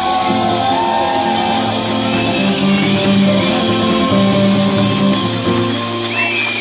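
Live folk-rock band with guitars and drums playing the closing bars of a song, the chords held and ringing out.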